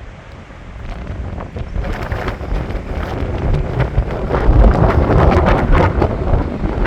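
Strong wind buffeting the microphone in gusts, building from about a second in and loudest in the second half.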